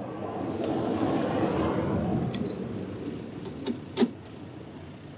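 Rustling and scraping of parts being handled inside a car door for about three seconds, then a few separate metallic clinks of tools and fasteners.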